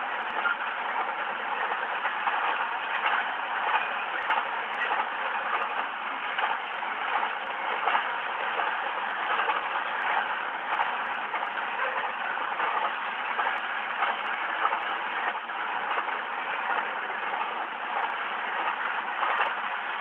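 Double-stack intermodal freight train rolling past: a steady, even rumble of steel wheels on the rails.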